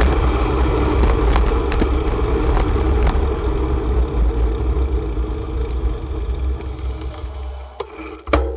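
Wind buffeting the microphone and rolling noise of a bicycle ride, a steady low rumble that dies away near the end as the bike slows, with a couple of sharp clicks just before it quiets.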